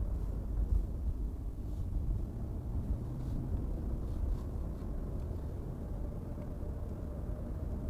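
Car driving along: steady low road and engine rumble.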